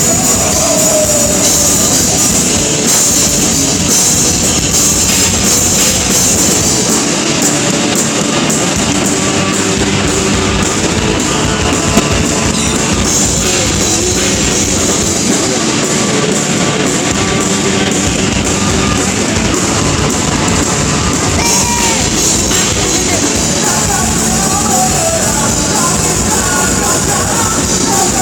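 A rock band playing live, loud and without a break: drum kit, distorted electric guitar and a singing voice, in a heavy rock style.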